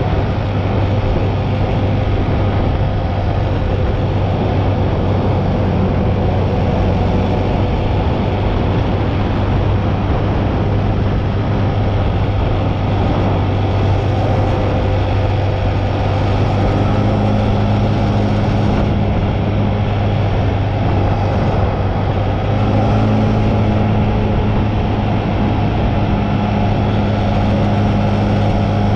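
Sport ATV engine running steadily at cruising speed on pavement, with a strong low drone and road and wind noise. A higher steady hum joins in twice in the second half.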